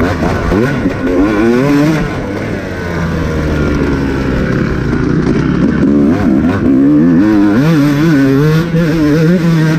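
Off-road racing dirt bike engine revving up and down over and over as the throttle is worked, its pitch rising and falling every second or so.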